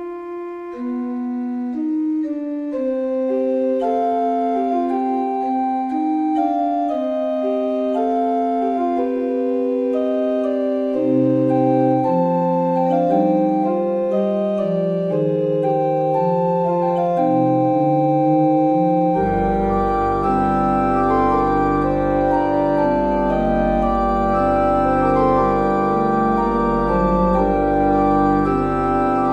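Instrumental background music of held keyboard notes playing a slow melody; a fuller layer with deep bass comes in about two-thirds of the way through.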